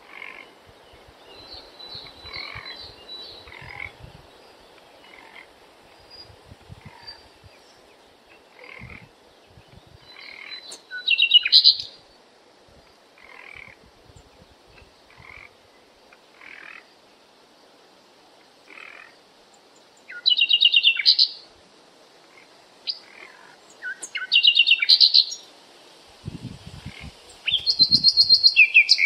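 Nature-sound background of animal calls, croaks and chirps, the kind made by frogs and birds. Four loud, rapid trilled calls stand out, the first near the middle and the rest in the last third, among fainter scattered calls.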